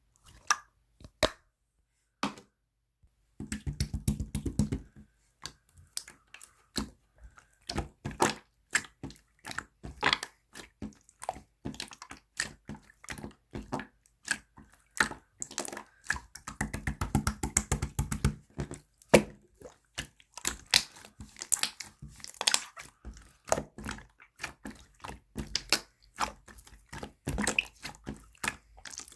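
Jelly slime being pressed and squished by hand, giving a string of wet clicks and pops. Two stretches of fast crackling come about three and a half seconds in and about sixteen seconds in.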